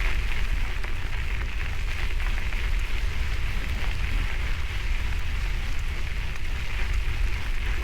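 Bicycle tyres crunching steadily over a gravel road, with wind rumbling on a bike-mounted camera microphone.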